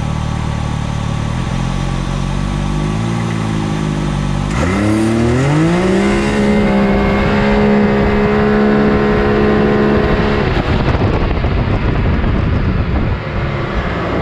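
Can-Am Maverick X3's turbocharged Rotax three-cylinder with a big turbo and Treal aftermarket exhaust, heard from the cab. It runs steadily at launch revs, then goes to full throttle about four seconds in. The pitch climbs quickly and holds level at high revs while the CVT keeps the engine at its peak as speed builds. About ten seconds in the throttle is let off, and the engine note gives way to a rushing noise as the car coasts.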